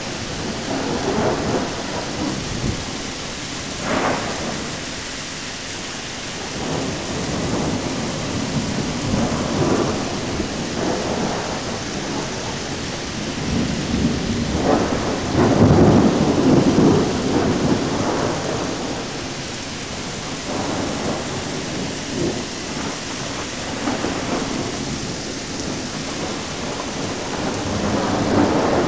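Thunderstorm: steady rain falling with repeated rolling rumbles of thunder, the loudest rumble about halfway through.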